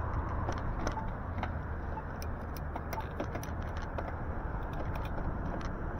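Steady low rumble of wind and road noise from a moving e-bike, with a scatter of light, irregular clicks and ticks.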